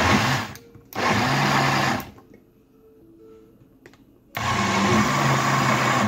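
Countertop blender motor running in three short pulses as fruit is blended for juice. It runs for about half a second, then about a second, then pauses for a couple of seconds before running again near the end.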